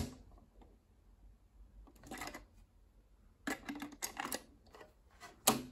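Faint mechanical clicks and clunks from the Dual C844 cassette deck's Direct Load & Lock cassette slot as the cassette is handled and pushed into place. The clicks come in a cluster a little over three seconds in, with a couple of sharper single clicks near the end.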